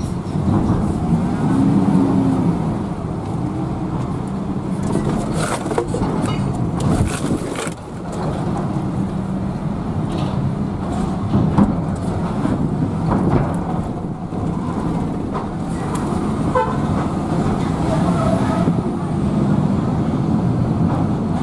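UD Quester truck's diesel engine heard from inside the cab, pulling at low speed as the truck drives up onto a ferry's vehicle deck, its pitch rising and falling with the throttle. A few sharp knocks come in around the middle.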